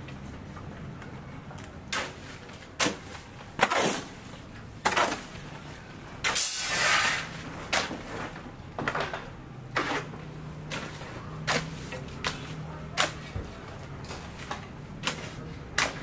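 A long-handled hoe working wet concrete mix: irregular scrapes and slaps of the blade through the mix, with one longer scrape about six seconds in.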